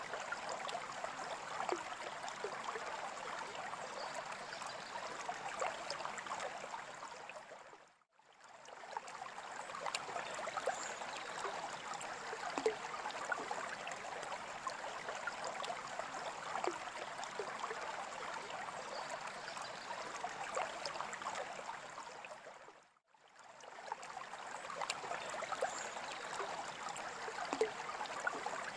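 Running water trickling and bubbling steadily, with many small splashes and pops. It fades out briefly and comes back twice, about eight and twenty-three seconds in.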